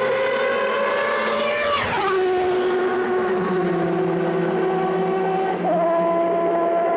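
Toyota TS010 Group C racing car's 3.5-litre V10 at high revs, its note climbing and then dropping sharply in pitch as it passes about two seconds in. It then holds a steady lower note, with a brief step up in pitch near the end.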